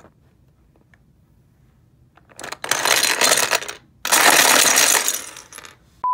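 Plastic Lego bricks clattering against each other in a clear plastic tub as a hand rummages through them. There are two bouts of about a second and a half each, after a quiet start.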